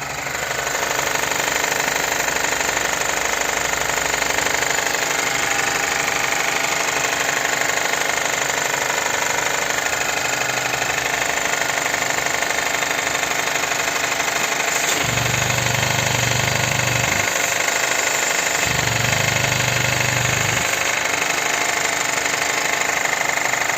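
GAC car engine running with a rapid, steady metallic knocking rattle, the 'кэт-кэт-кэт' knock the owner traces to a slack timing chain with no tension. A deeper hum comes in twice in the second half.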